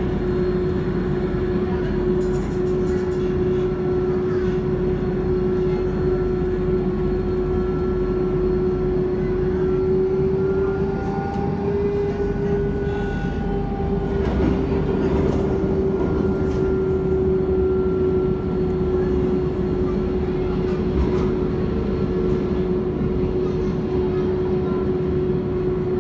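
Metro train running through a tunnel, heard from inside the car: a steady rolling rumble with a constant whine that rises slightly about ten seconds in and settles back a few seconds later.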